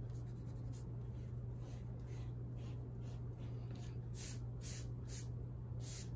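A block eraser rubbing pencil lines off drawing paper: a run of brisk back-and-forth scrubbing strokes, about two a second and louder in the second half, over a steady low hum.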